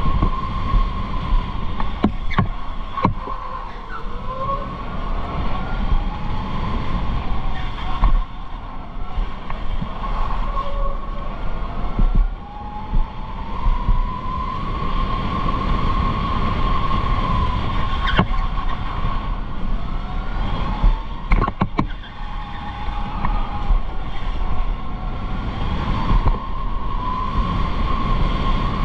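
Electric go-kart's motor whining while it laps, a steady high whine with fainter tones that rise and fall as the kart speeds up and slows, over wind buffeting on the microphone. A few sharp knocks come through, two near the start and a couple more later on.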